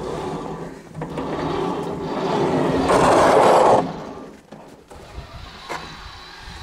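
Homemade battery-powered self-propelled wheelbarrow with a snow blade, scraping and crunching through snow with a steady whir of its electric gear motor underneath. It grows louder up to a peak about three seconds in as it passes close, then turns much quieter.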